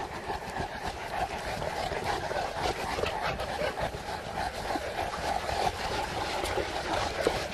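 A large pack of St. Bernard dogs on the move, panting, over steady outdoor background noise.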